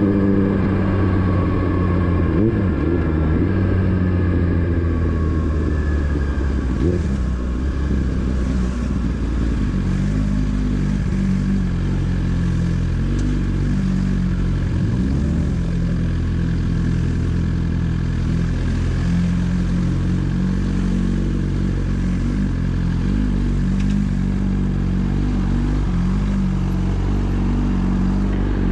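Motorcycle engine running on the move, its pitch shifting up and down over the first several seconds, then holding steady as the bike cruises.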